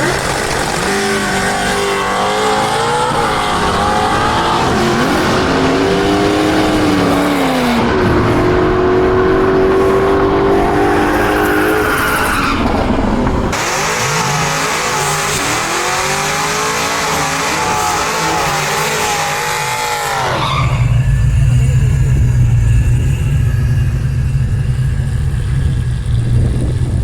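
Drag-racing cars accelerating hard down the strip, engine pitch climbing and dropping repeatedly through gear changes. About twenty seconds in the sound switches abruptly to a steady low engine drone.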